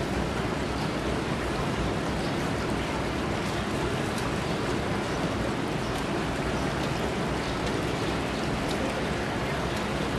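Distant ocean surf: a steady, even wash of noise with no breaks.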